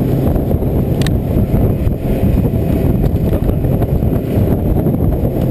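Wind buffeting the action camera's microphone on a small boat under way: a loud, steady rumbling rush. A single sharp click about a second in.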